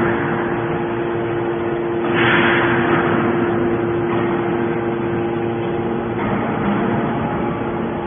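Hydraulic scrap metal baler running: a steady hum from its hydraulic power unit, with a louder hissing surge about two seconds in.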